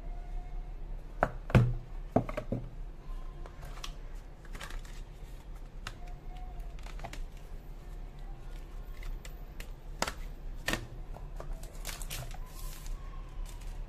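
A smartphone's white cardboard retail box being opened and unpacked by hand: the lid lifted off, then a clear plastic case and inner pieces taken out, with scattered clicks, taps and rustles. The loudest knocks come about one and a half and two seconds in, with more around ten seconds in.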